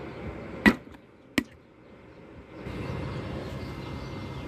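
Two sharp snaps about two-thirds of a second apart, the first the louder, as the foil seal is pulled off the neck of a plastic motor-oil jug.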